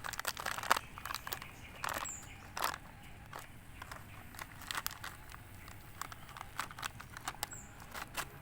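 Ration biscuit packet crinkling and crackling as it is handled and opened, in many irregular sharp crackles.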